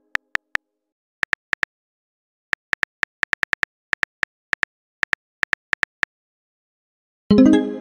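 Phone keyboard typing clicks, short and irregular, often in quick twos and threes. Near the end a louder message chime rings out and fades as the typed text is sent.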